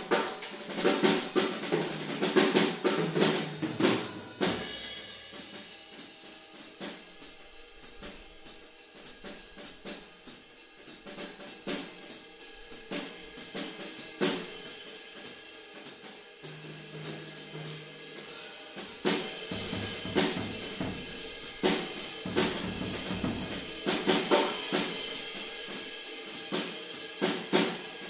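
Odery Eyedentity 14x4.5-inch all-maple snare drum tuned fairly low, played within a drum kit groove with bass drum, hi-hat and cymbals. The playing is louder for the first few seconds, drops to a softer passage in the middle, and builds up again from about two-thirds of the way in.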